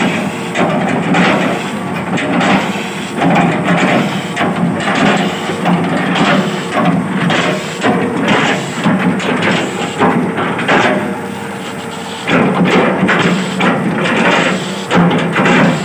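Hydraulic excavator's diesel engine running under load while its chipping blade chops a felled oil palm trunk, with repeated irregular crunching chops of the fibrous wood, briefly easing off about twelve seconds in.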